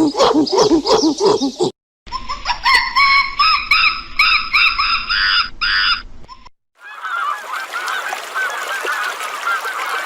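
Farm waterfowl calling in a run of regular, evenly spaced honking calls. This is preceded by a short burst of lower repeated animal calls that cuts off. After a brief gap comes a flock's dense, overlapping chatter of many short calls.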